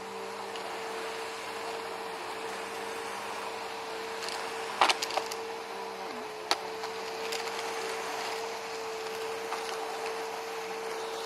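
Bissell Rewind Premier Pet bagless upright vacuum running steadily while sucking up grass from a lawn, its motor holding a steady hum. A few sharp clicks and rattles of debris going through come about five seconds in and again a second or so later.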